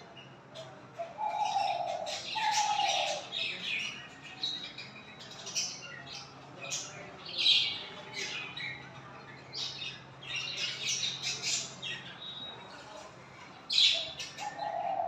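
Bird calls from a wild dove and its chick: many quick, high chirps and squeaks come in irregular clusters throughout. Two short, lower calls fall in pitch about one and two and a half seconds in.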